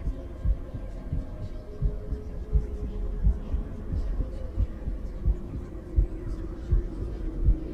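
A woman's heartbeat heard through a stethoscope: steady low thumps, a little over one beat a second, over a low hum.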